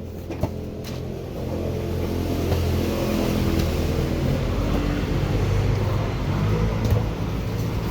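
A motor vehicle engine running, growing louder over the first couple of seconds and then holding steady, with its pitch shifting slightly.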